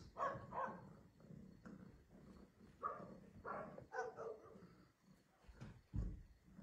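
Dogs barking faintly and on and off, in short separate barks. A low thump comes about six seconds in.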